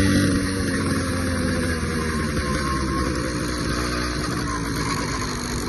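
Small engine of a motorized bicycle running steadily, easing off slightly just after the start, while it makes the strange noise its owner is checking.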